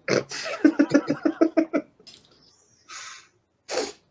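A burst of quick, pitched laughter for about two seconds. Then a breathy huff, and near the end a short, sharp burst of breath like a cough.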